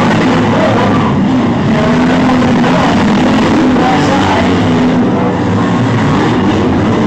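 Several demolition derby cars' engines running and revving together in a loud, continuous din, their pitches wavering up and down.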